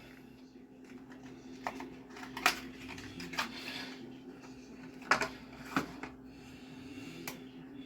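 Light clicks and knocks, about six spread over several seconds, of a small bottle of vanilla extract and kitchen items being handled on a counter, over a faint steady hum.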